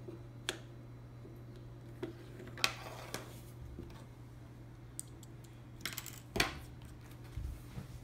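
Small plastic building bricks clicking and clattering against each other and a wooden tabletop as a brick puzzle box is handled and taken apart: scattered sharp clicks, busiest about two and a half seconds in and again just after six seconds.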